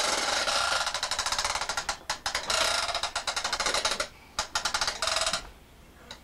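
Plastic Batman Big Wheel ride-on rattling with a fast run of clicks as a toddler pedals it across the floor, breaking into shorter stretches and stopping about five seconds in.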